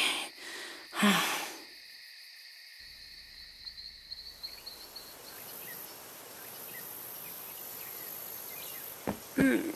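A boy's short nervous vocal sound about a second in. Then quiet night ambience of crickets chirring steadily, giving way to a faint even outdoor hiss.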